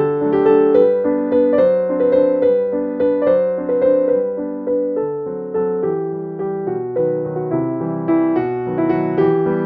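Background piano music: a gentle melody of notes played one after another, each note fading after it is struck.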